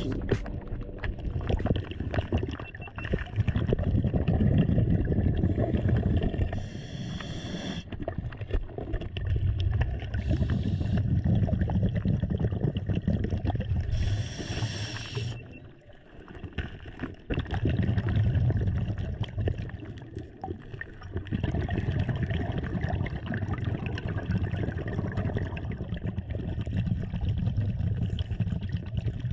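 Scuba diver breathing through a regulator, heard underwater: short hissing inhalations alternating with longer low bubbling rumbles of exhaled air, repeating every few seconds.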